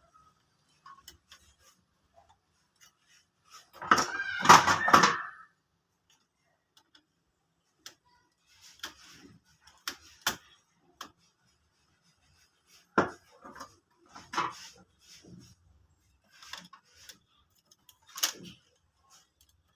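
Metal and plastic printer parts being handled and fitted by hand: scattered clicks, taps and knocks, with a louder rattling clatter about four seconds in.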